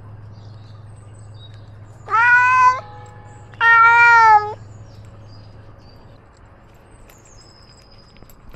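A domestic cat giving two loud meows, each under a second long and about a second apart.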